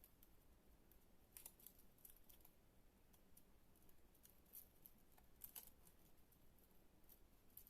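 Near silence, with a few faint, short crisp rustles and clicks of paper being handled, folded or cut, the clearest about a second and a half in and again at about five and a half seconds.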